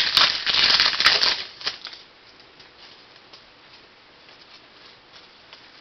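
Trading cards being handled and flipped through by hand: a dense papery rustle and crackle for about the first second and a half, then only faint light rustling.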